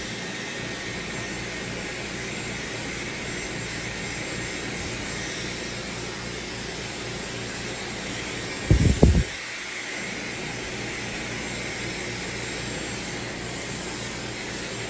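Dyson Supersonic hair dryer blowing steadily on a high setting: a rush of air with a faint high motor whine. About nine seconds in there is a short, loud, low rumble.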